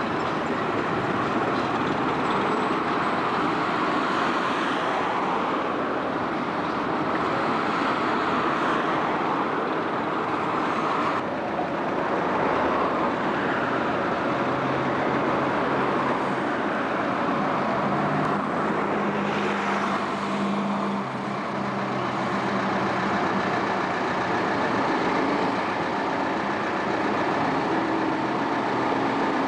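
Street traffic with buses and cars running past: a steady mix of engine and road noise. A low bus engine drone stands out for a few seconds past the middle, and the sound changes abruptly about eleven seconds in.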